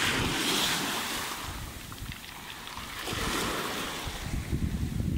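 Small sea waves washing in over a pebble beach and drawing back, louder at first, easing off and swelling again, with some wind rumble on the microphone.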